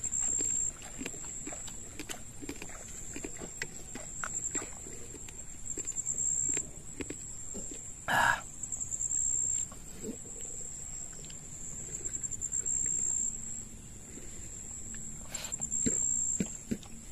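Someone eating crab curry and rice with the fingers: chewing, lip-smacking and small wet clicks, over a steady high-pitched tone. One louder sharp sound about eight seconds in.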